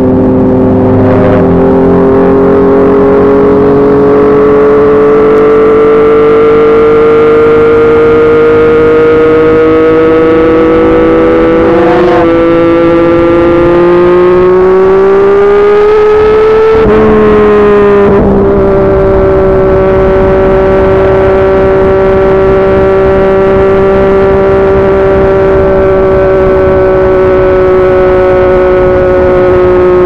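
Yamaha MT-09's three-cylinder engine running through a Yoshimura R55 slip-on exhaust under way, loud and continuous. The engine note climbs slowly for over half the time, drops sharply about seventeen seconds in, then holds steady.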